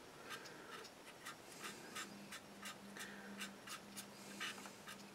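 Faint, repeated scratchy rubbing of a cotton wool bud damp with white spirit over the painted plastic hull of a model tank, about three strokes a second, wiping off the excess enamel wash.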